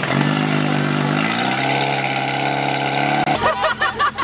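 Portable fire pump's engine running hard, its pitch rising about a second in and then holding steady at high revs. It cuts off abruptly about three seconds in, and voices follow.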